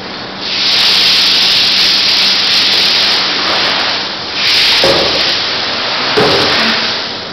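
Loud, steady hissing like a jet of spraying water or air, in two long stretches with a short break a little after four seconds, over a faint steady hum. A few dull knocks come near the end.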